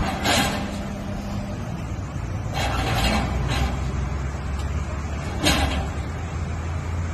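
Heavy diesel vehicle engine running steadily under load, with several short hisses of released air breaking in: about half a second in, twice around three seconds, and once more about five and a half seconds in.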